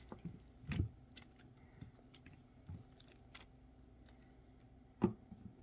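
Light scattered clicks and taps of small plastic toys and bracelets being handled, with a louder knock just under a second in and another near the end.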